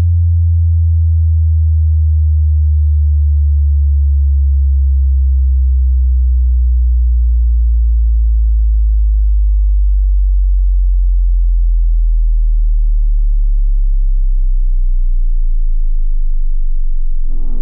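Subwoofer test tone: a loud, deep, steady sine-wave hum that drops in pitch step by step, about every four seconds.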